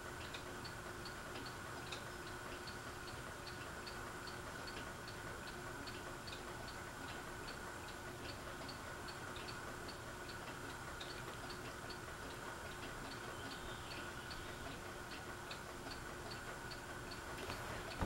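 Fasco Vanity Fair ceiling fan running at medium speed: a quiet, steady motor hum with a regular light ticking, about three ticks a second.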